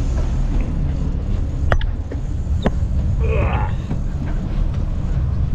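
Steady low rumble of wind on the microphone and the boat running at sea. Two sharp knocks come about a second apart as someone climbs the boat's metal tower ladder, and a short voice is heard near the middle.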